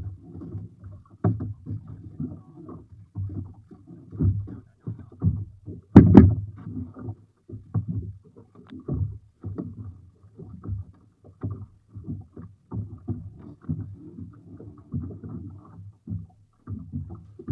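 A small wooden fishing boat rocking in choppy water in strong wind: irregular gusts and water slapping against the hull, with scattered knocks on the boat and one loud sharp knock about six seconds in.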